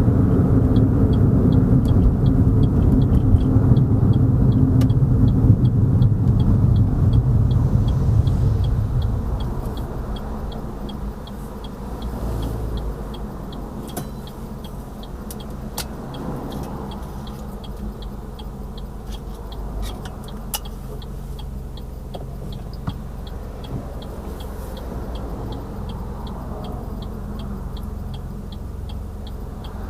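Car interior: road and engine rumble that drops away about nine seconds in as the car slows, then a quieter steady hum, with the turn-signal indicator ticking evenly, a few clicks a second.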